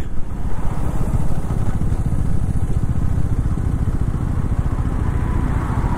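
KTM 390 Adventure's single-cylinder engine running at low revs as the bike rolls slowly, with a fast, low, pulsing thrum.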